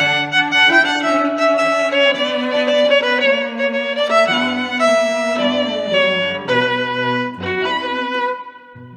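Background music: a slow melody of held bowed-string notes that grows quieter near the end.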